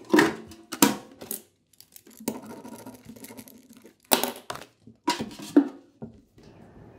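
Desk-top handling of a ballot box and paper: a series of sharp knocks with scratchy rustling between them, as the box's lid is worked and shut.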